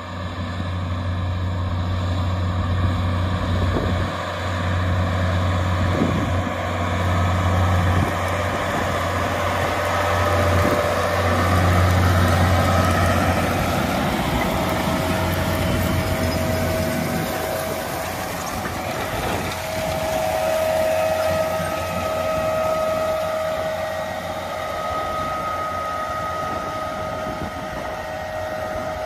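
John Deere 9R 490 tractor's diesel engine running under load as it pulls a corn planter past. It is loudest as the tractor passes close by, about halfway through, and the low drone fades as it draws away.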